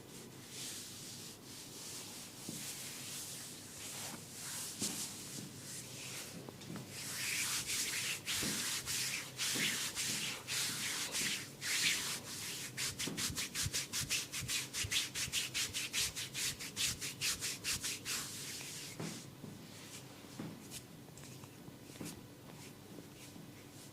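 Scratchy rubbing of a close-up ASMR massage, hands or sticks rubbing skin and hair near the microphone. Slower strokes build into quicker, louder rubbing at about four strokes a second through the middle, then ease off.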